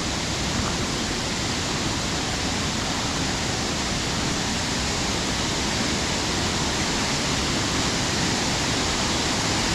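Waterfall: water dropping about 10 to 15 feet and spreading over rocks, a steady full rushing noise with no change.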